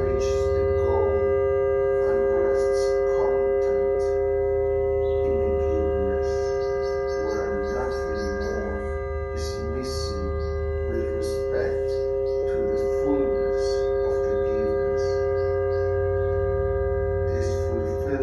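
Analog synthesiser drone: several steady tones held unchanging, layered over each other, with irregular high crackling and clicking scattered through them.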